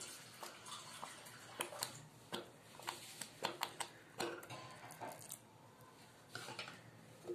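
Thick spinach gravy bubbling in a pan over a raised flame, giving faint, irregular pops and blips as bubbles burst. A little water is poured into it about four seconds in.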